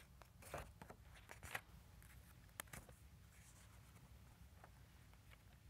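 Near silence: quiet room tone, with a few faint soft rustles and ticks in the first three seconds.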